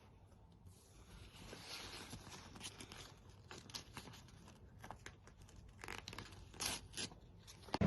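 Faint rustling and crinkling handling noise with many small clicks, and two louder crackles near the end.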